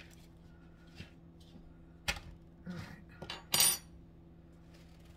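Kitchen utensils and pans clinking and clattering: a sharp clink about two seconds in, then a few short clattering handling sounds, the loudest about three and a half seconds in, over a faint steady hum.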